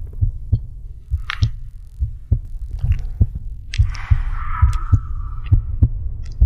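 Stomach growling: a low throbbing rumble with soft thumps about three times a second, and a longer gurgle with a squeaky note about four seconds in.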